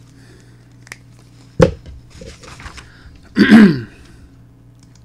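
A person's sounds close to a microphone between voiceover takes. A sharp click comes about a second and a half in, then a short voiced sigh falling in pitch halfway through, with a few faint mouth clicks and a steady low hum underneath.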